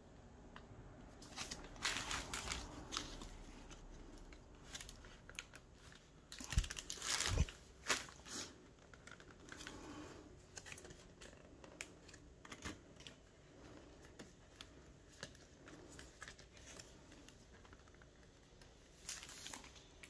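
Graphics card packaging being handled and opened: irregular crinkling, rustling and tearing of wrapping, with a couple of short knocks about seven seconds in.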